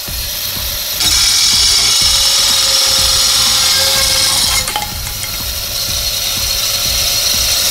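Homemade battery-powered 24-volt electric disc saw whining as its small disc cuts through a thick cane. About four and a half seconds in there is a short crackle as the cut goes through and the load drops, then the motor runs on, gradually getting louder.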